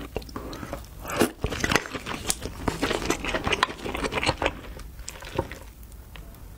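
Close-miked eating of king crab: a dense run of sharp cracks and crunches with chewing, busiest in the first half and thinning out towards the end.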